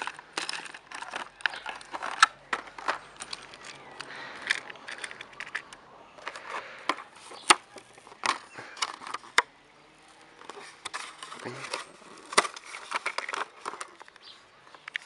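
A toy train's box and packaging being opened by hand: irregular rustling, scraping and light clicks and knocks, with a quieter lull about ten seconds in.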